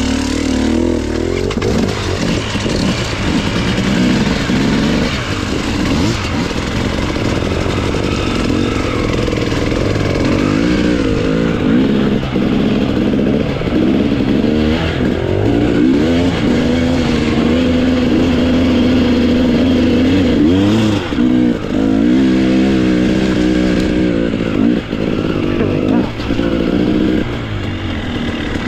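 Enduro motorcycle engine running hard, its pitch rising and falling again and again as the throttle is opened and closed, with a couple of brief drops in loudness.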